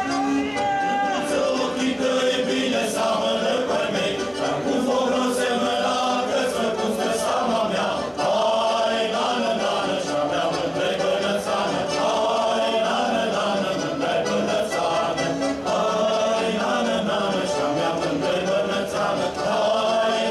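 A choir singing a folk song in chorus, with several voices together.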